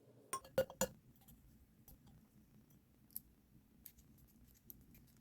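Rapt V2 magnetic fidget slider with brass strong-magnet inserts clicking: three loud, thick clicks in quick succession as the plates snap across, then a few fainter clicks and light metal ticks.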